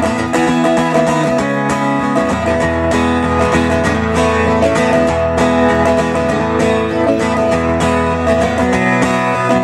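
Acoustic guitar strummed steadily and amplified through a PA, an instrumental passage between the sung choruses of a folk-pop song.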